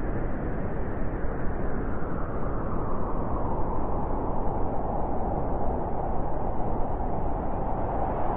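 Blizzard wind blowing steadily, a hollow howl in it growing stronger about halfway through.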